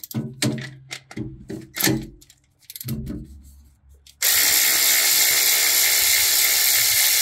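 A series of short clicks and knocks from working a bolt, then about four seconds in a power tool starts suddenly and runs steadily at full speed. It is backing out the bracket bolts of a transmission mount.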